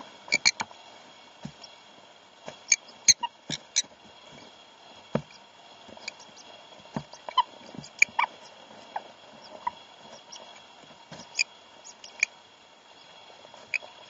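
A pair of sun conures mating, giving short squeaky calls at irregular intervals, mixed with brief scratchy clicks as they shift on the nest-box bedding.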